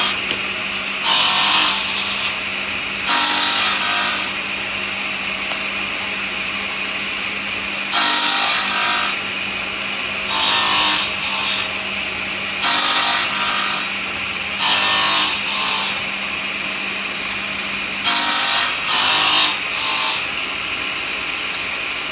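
Stone-cutting saw machine running with a steady hum, with loud harsh cutting noise surging for about a second at a time, about seven times.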